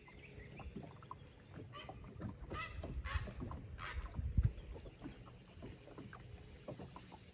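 A bird calling about four times in the middle, each a short call, over low irregular knocks of water lapping against the boat's hull.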